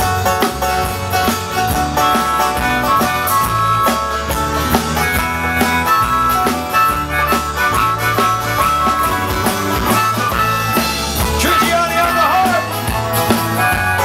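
Live country band playing an instrumental break with no singing: a harmonica lead with held notes and bends over strummed acoustic guitars, electric bass and cello.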